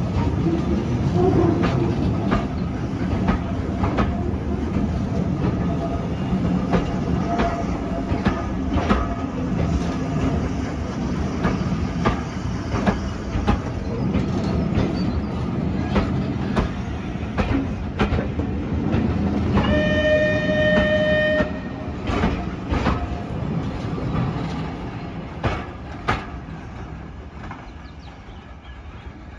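Passenger coaches rolling past on jointed track: a low rumble with irregular clicks and clunks of the wheels over rail joints and pointwork, fading as the train draws away near the end. About two-thirds of the way through, a steam locomotive's whistle sounds once, a steady note lasting about a second and a half.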